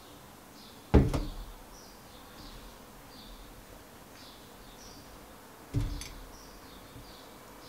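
A heavy glass set down on a tabletop with a sharp thump about a second in, then a second, softer thump on the table near the end. Faint, short, high chirps repeat in the background.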